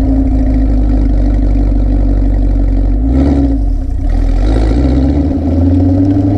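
Exhaust note of a 2018 Camaro SS's 6.2-litre LT1 V8 through the factory GM NPP active dual-mode exhaust, heard right at the tailpipes while driving: a steady low drone with road noise. About three seconds in the engine note bends briefly, then climbs again.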